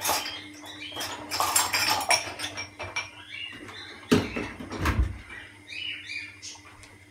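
Metal kitchen utensils clattering and clinking while tongs are fetched from among them, with a heavier knock about four seconds in.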